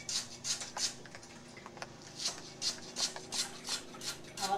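Repeated short scraping or rubbing strokes, about three to four a second, thinning out for a moment about a second in.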